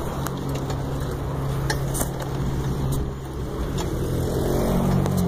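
A motor vehicle engine running steadily nearby, its pitch shifting and rising a little near the end, with scattered light knocks and rumble from a phone being carried on a moving bike.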